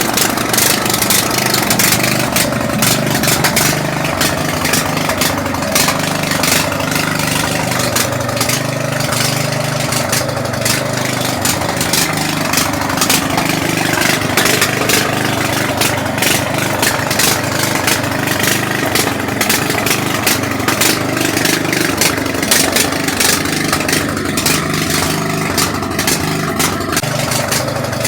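Small riding-mower engine running steadily, with many sharp clicks and rattles over the engine note.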